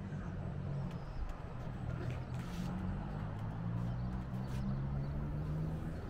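Steady low rumble of town traffic heard over the rooftops, with a few faint short sounds on top.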